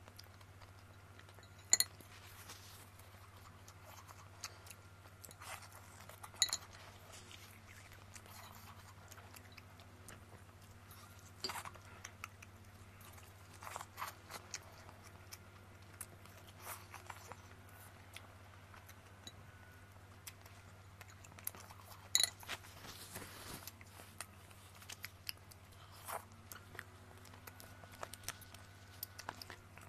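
Close-up eating sounds: a person chews and bites into a braised chicken drumstick, with scattered small clicks and wet mouth noises. Several sharper clicks come from the chopsticks tapping on the plate.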